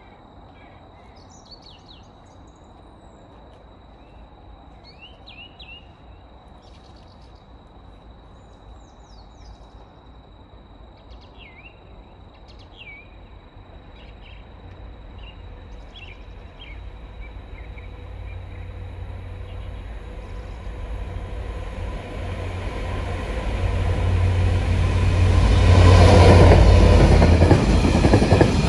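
Birds chirping faintly while a Class 66 diesel locomotive, with its EMD two-stroke V12 engine, approaches with a freight train. Its low engine rumble builds steadily and is loudest about 26 seconds in as it passes at speed, and the wagons then run noisily past near the end.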